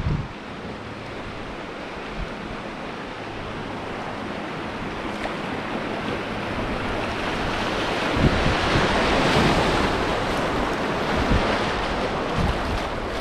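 River water rushing over shallow rapids around a kayak, with wind rumbling on the microphone in low thumps. The rush grows louder about eight seconds in.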